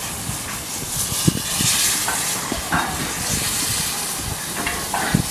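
Steady hiss of escaping steam from a steam locomotive with a goods train, broken by a couple of dull low thumps, one about a second in and one near the end.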